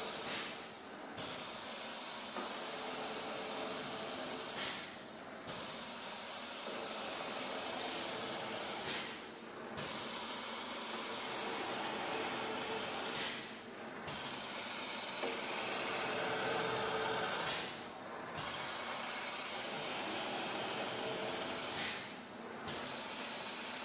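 Four-shaft adhesive tape cutting machine running, a steady hissing noise that breaks off briefly about every four seconds in a regular cutting cycle.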